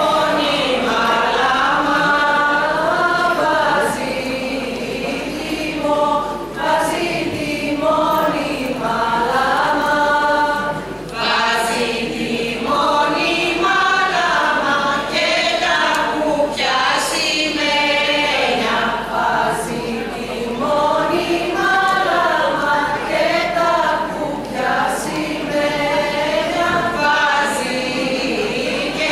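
A group of voices singing a slow, ornamented Asia Minor Greek folk song from the Marmara islands in unison, with no steady beat behind it, to accompany a circle dance.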